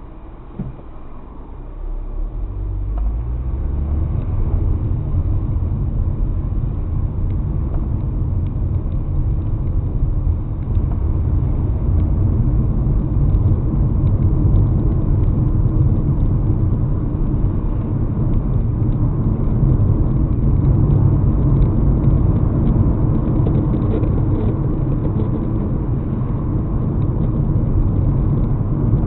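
Car engine and road rumble heard through an in-car camera. It swells over the first few seconds as the car pulls away, then runs as a steady low rumble while driving.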